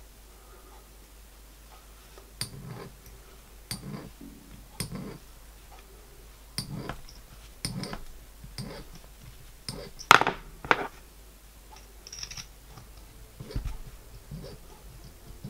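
Tap turned by hand in a T-handle tap wrench, cutting a 4BA thread into an aluminium bronze crosshead: irregular small clicks about once a second, the loudest a little past the middle.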